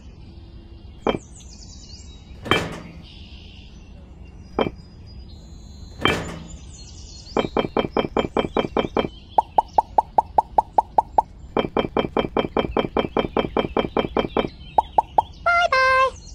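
A few separate sharp knocks of miniature clay bricks being handled. Then come long runs of rapid, evenly spaced pitched clicks, about eight a second, in the manner of an added sound effect. Near the end there is a short tone stepping down in pitch.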